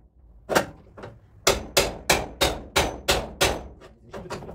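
Hammer blows on a car's sheet-metal body panel, panel beating to reshape the metal. There is one blow about half a second in, then a steady run of about seven blows at roughly three a second, and a few lighter taps near the end.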